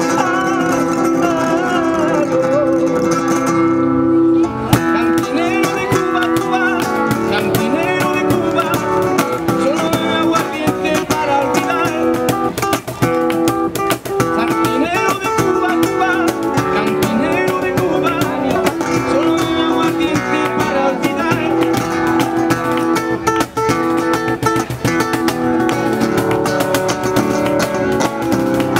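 Live flamenco music on acoustic guitar. A male voice sings a wavering, ornamented line for the first few seconds, then the guitar and percussion break into fast, dense strumming and strikes.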